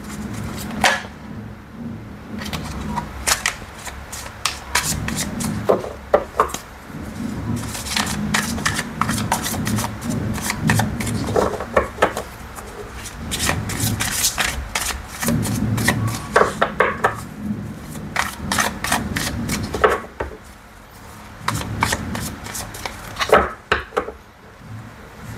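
A tarot deck being shuffled by hand, overhand, with many short, irregular snaps and taps of the cards over a low background rumble.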